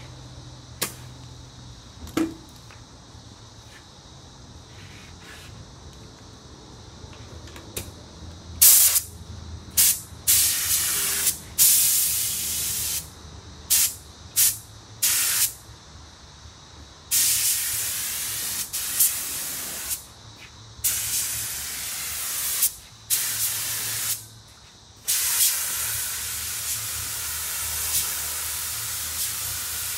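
Compressed-air paint spray gun hissing in trigger pulls: a few short bursts about a quarter of the way in, then longer, near-continuous passes through the second half as paint is laid on a car panel.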